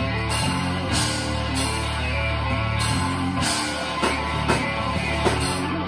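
Live rock band playing with amplified electric guitars, bass, keyboard and drum kit, with strong regular drum hits. The full band drops away at the very end as the song finishes.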